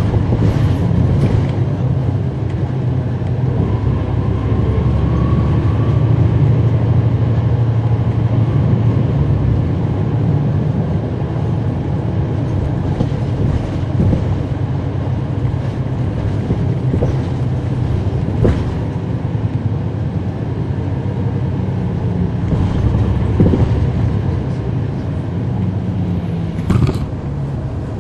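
Cummins ISL9 inline-six diesel engine of a 2011 NABI 40-foot transit bus, heard from the rear seats: a steady low drone with interior rattles. A faint high whine runs through the first several seconds, and sharp knocks come about 18 seconds in and again near the end.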